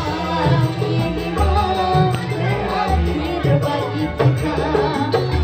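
Live band music: a man and a woman singing into microphones over an electronic keyboard and a hand drum, with a steady low beat.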